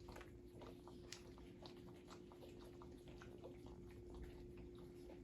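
Near silence with faint, irregular wet clicks and smacks of newborn puppies suckling, over a faint steady hum.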